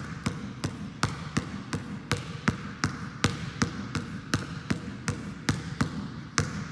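Basketball dribbled on a gym floor in a pound-crossover drill: a steady run of bounces, about three a second, with harder pound dribbles among lighter crossover bounces.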